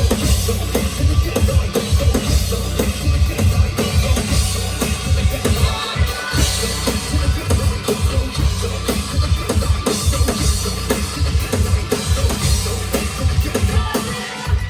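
Live rock band playing loud, with fast, dense drumming on bass drum and snare under cymbals and distorted guitar.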